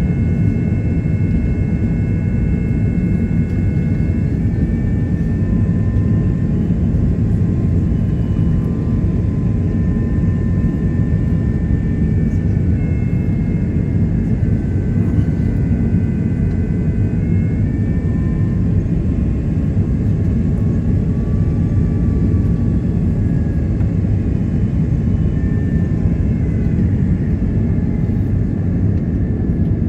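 Cabin noise inside an Airbus A330-900neo on its approach to land: a steady, loud rush of airflow and low engine rumble from its Rolls-Royce Trent 7000 engines, with several thin whining engine tones that shift in pitch now and then.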